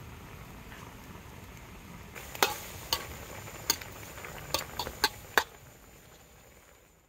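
Metal ladle stirring soup in a steel wok, clinking sharply against the pan about seven times through the middle, over a steady simmering hiss that fades near the end.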